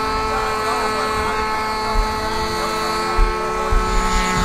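A propeller-driven RC model airplane running at takeoff power as it rolls down the runway and lifts off, a steady high buzz with one tone rising in pitch about halfway through. A few low thumps come in the second half.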